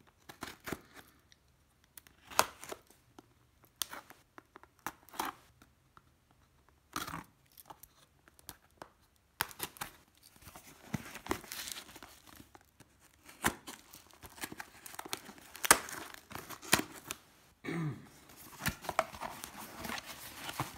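Pocket-knife blade slitting packing tape on a cardboard box in short, scattered scrapes and clicks, then the box being pulled open and plastic bubble wrap tearing and crinkling in denser stretches over the second half.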